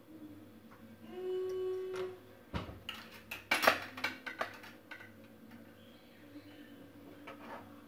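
Metal spatula and metal baking tin knocking and clattering on a granite countertop: a quick run of sharp knocks, loudest about three and a half seconds in. Before it, a short steady hum lasts about a second.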